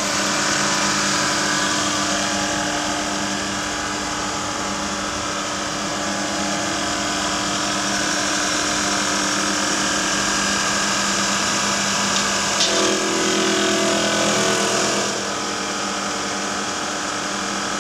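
Turret milling machine running with its spindle motor and gearbox turning freely in the high-speed range, a steady mechanical whir with a hum. About twelve seconds in, a second, lower tone joins for a couple of seconds, with a few clicks.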